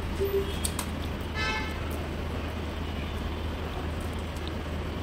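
Steady background hum with general street-traffic noise, a few faint clicks of a metal tool near the start, and a brief high-pitched tone about a second and a half in.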